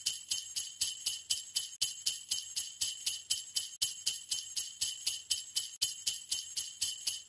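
Sleigh bells shaken in a steady rhythm, about four or five shakes a second, bright and high-pitched.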